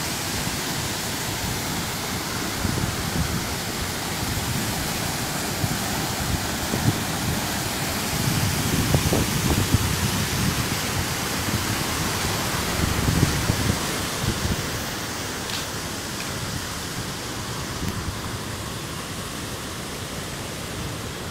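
Steady rush of water pouring through a dam's gates, with wind gusting on the microphone in irregular low rumbles.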